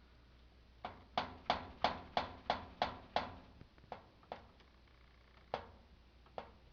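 Sharp knocks on the range's display panel, pushed and tapped into its clip-on replacement brackets: a quick run of about eight, roughly three a second, then four scattered ones.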